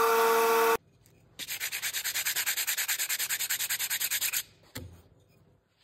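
A bandsaw runs with a steady hum and cuts off abruptly under a second in. After a short pause, a hand-held yellow sanding block scrubs a cut wooden letter in fast back-and-forth strokes, about ten a second for some three seconds, followed by a single low knock.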